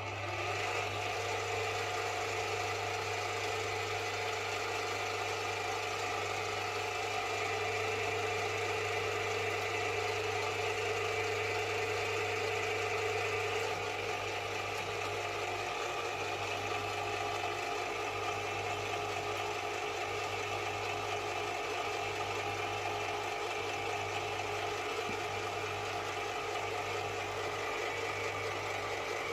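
Small metal lathe running with its spindle turning, giving a steady motor-and-gear hum that starts suddenly and shifts slightly in tone about halfway through, while a 3 mm tap in the tailstock is fed to the work.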